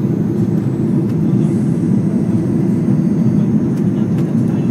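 Steady roar of an airliner's engines and rushing air, heard inside the passenger cabin during the climb after takeoff.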